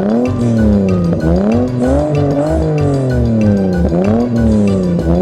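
An engine revving, its pitch rising and falling over and over as the tractor strains to pull, over children's background music with a steady beat.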